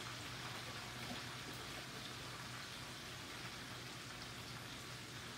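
Catfish fillets frying in oil in a skillet: a faint, steady crackling hiss, with a low hum underneath.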